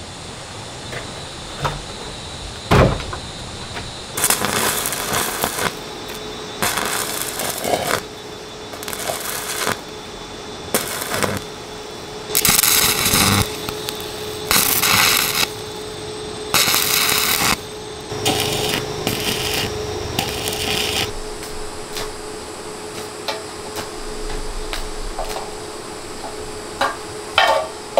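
A wooden table is tipped over onto a concrete floor with a single knock. Then comes the crackle and hiss of stick (arc) welding on steel tube, in separate runs of about a second each, over a steady hum. Light metal taps and clicks follow near the end.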